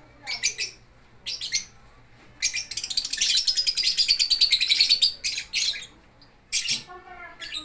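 Lovebirds chirping: a few short, sharp high chirps, then about three seconds of rapid chattering, then more single chirps near the end.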